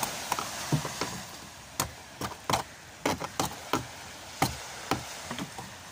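Hammer striking a chisel against a fishing boat's fibreglass-covered hull, chipping around a damaged patch: a dozen or so sharp taps at an uneven pace, some in quick clusters.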